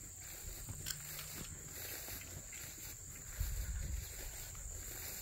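Steady high-pitched drone of insects in a grassy field, with a brief low rumble on the microphone about three and a half seconds in.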